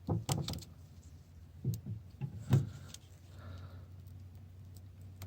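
Light clicks and knocks of small metal parts being handled, such as wire terminals and switch hardware, a few in the first second and two more around two seconds in, over a faint steady low hum.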